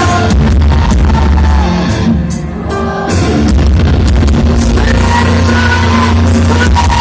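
Loud music with a heavy, steady bass and a melody line over it, played through a large sound system; it thins out briefly about two and a half seconds in, then comes back at full level.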